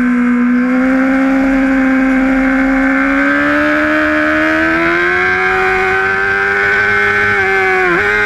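Honda sport bike engine at high revs under way, heard from on board. The engine note climbs steadily for several seconds, dips sharply for an instant near the end, then recovers and eases off.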